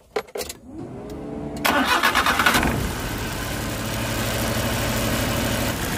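Suzuki Multicab's fuel-injected three-cylinder engine being cranked by the starter. It catches just under two seconds in, with a brief flare, then settles to a steady idle. It runs with a misfire on one cylinder, caused by a faulty ignition coil.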